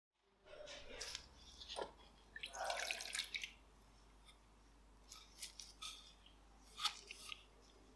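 Rust-remover liquid splashing and dripping as a soaked pistol barrel tube is lifted out of a glass dish of the solution. The sound thins to a few scattered drips and taps in the second half.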